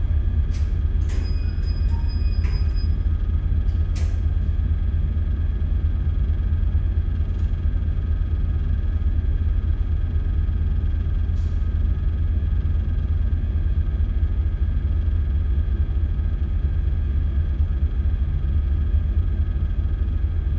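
Steady low rumble and hum of a ship's engine and machinery carried through the bridge, with a few light clicks in the first four seconds.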